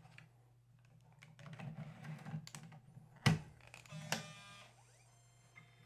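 A 3.5-inch floppy disk pushed into a Panasonic SuperDisk 240 USB drive: a run of small clicks and rattles, then a sharp clack a little over three seconds in as the disk goes home. About a second later the drive gives a brief whirring whine as it spins the disk up.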